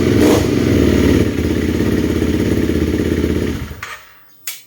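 Honda CRF300L's single-cylinder engine running through a freshly fitted Yoshimura full exhaust system, then switched off about three and a half seconds in, dying away within half a second. A single sharp click follows near the end.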